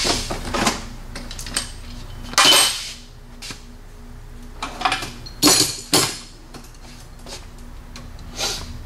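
Metal hand tools clinking and clattering, as when sockets and wrenches are picked through: about half a dozen separate knocks and rattles spread over several seconds, over a faint steady hum.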